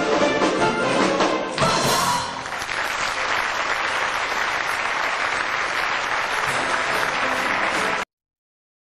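A stage musical number ends with its music stopping about two seconds in, and a theatre audience applauds steadily. The applause cuts off abruptly near the end.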